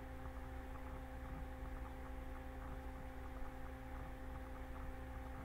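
Room tone: a steady low hum with a few constant tones under faint hiss.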